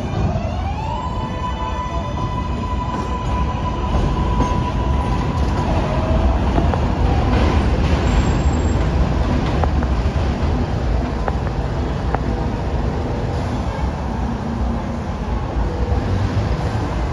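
New York City subway train accelerating: its propulsion whine rises in pitch over about a second and then holds steady for several seconds, over wheel and rail rumble that grows louder toward the middle.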